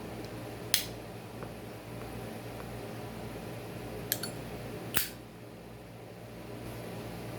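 Zippo lighter case with a butane pipe insert clicking as a pipe is lit: a sharp metallic click about a second in, a lighter double click near four seconds, and a loud snap at about five seconds, over a steady low hum.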